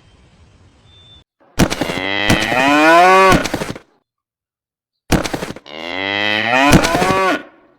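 Two long drawn-out animal calls, each rising in pitch, with sharp clicks within them.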